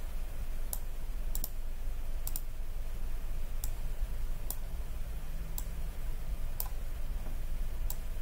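Computer mouse clicking: about ten sharp clicks spaced roughly a second apart, two of them quick double clicks, over a low steady hum.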